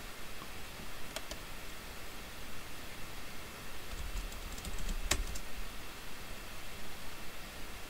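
A few scattered clicks from a computer keyboard and mouse: a pair about a second in, then a small cluster with one sharper click about five seconds in, over a faint steady hiss.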